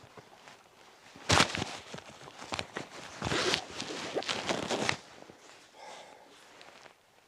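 A run of close rustles, crunches and knocks, the loudest about a second in and again around the middle, dying down to faint rustling near the end.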